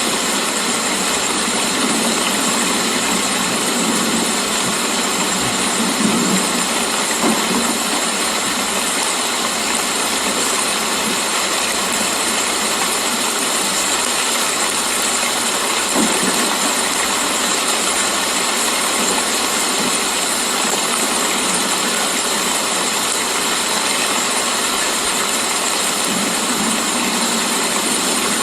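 Steady heavy rain falling as an even hiss, with a few louder drops or knocks now and then.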